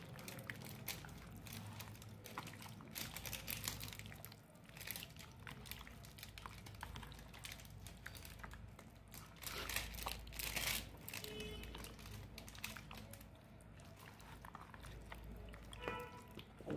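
Hands squishing and kneading chicken pieces through a wet yogurt-and-spice marinade in a plastic bowl: faint, irregular wet squelches and crackles.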